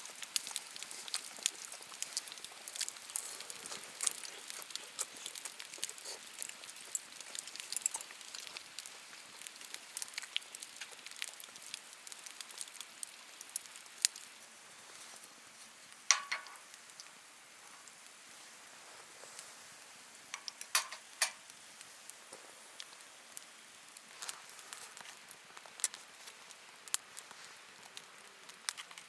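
Wood campfire crackling, with irregular sharp pops and ticks over a soft hiss. A few louder pops come about two thirds of the way in.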